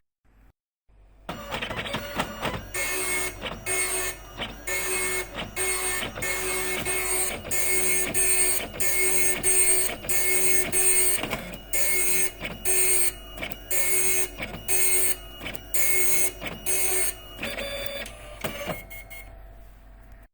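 Epson dot matrix printer printing: its print head chatters across the page in repeated bursts, about one a second, with a whining tone under each pass. It starts about a second in and stops just before the end.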